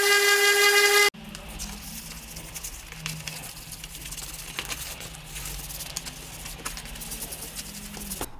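A woodworking power tool's electric motor running at full speed with a high, steady whine, cut off abruptly about a second in. The rest is much quieter workshop noise: a low hum with scattered light clicks and taps.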